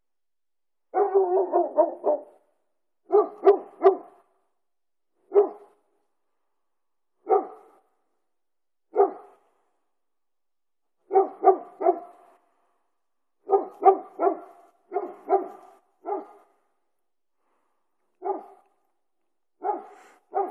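An animal calling in short pitched calls, repeated every second or two, singly or in quick runs of two to four.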